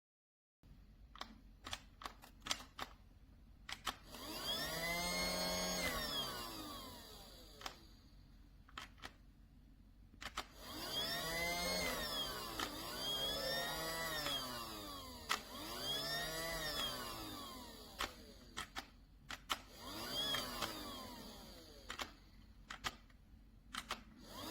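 Casdon toy Dyson cordless vacuum's small battery motor whirring in about five short runs. In each run the pitch rises as the motor spins up and falls as it winds down. Sharp clicks and knocks come between the runs.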